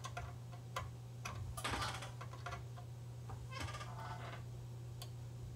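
Small screwdriver turning a trimmer potentiometer on a multimeter's circuit board during calibration: a few faint clicks and short scratchy scrapes over a steady low electrical hum.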